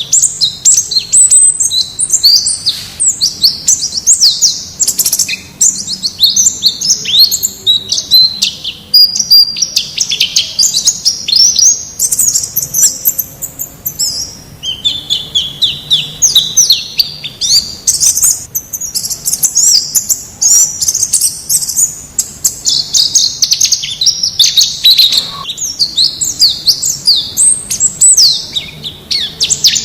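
White-eye (pleci) song: a continuous stream of rapid, high-pitched chirps and twittering trills with hardly a pause, dropping somewhat lower in pitch for a while about halfway through.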